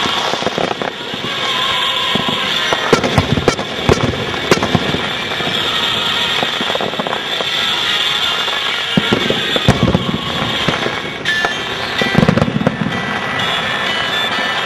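Aerial fireworks bursting in a continuous barrage: repeated sharp booms over steady crackling, with a cluster of the loudest booms about four seconds in and again near ten and twelve seconds.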